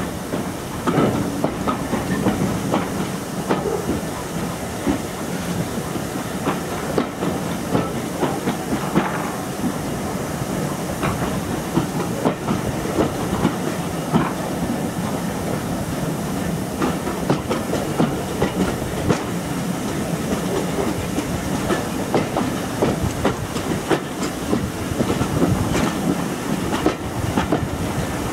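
Steam-hauled passenger train behind GWR 2-6-2 Prairie tank 5542, heard from an open carriage window while running: a continuous rumble and hiss with irregular sharp clicks of the wheels over the rail joints.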